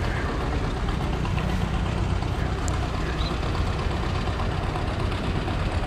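An engine idling steadily: a low, even rumble with no change in speed.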